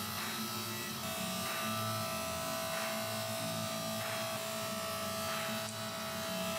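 Hydraulic forging press's electric pump motor starting about a second in and running with a steady hum, over background music with a steady beat.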